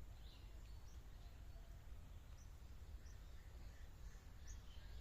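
Faint outdoor ambience: a steady low rumble with scattered short bird chirps.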